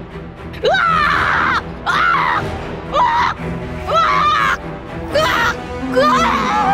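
A woman screaming in short, loud cries, about one a second, each rising then falling in pitch: mock screams while play-acting being attacked. Background music runs underneath.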